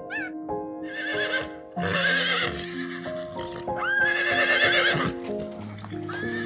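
A horse whinnying several times in quavering calls, the longest about four seconds in, over soft background music with held notes.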